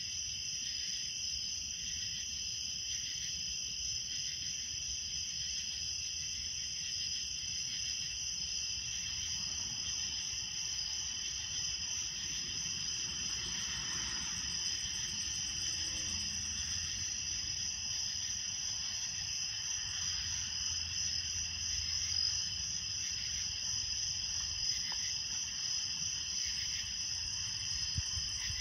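Late-summer night chorus of crickets and katydids: steady, overlapping trilling in two pitch bands, one high and one lower, carrying on without a break.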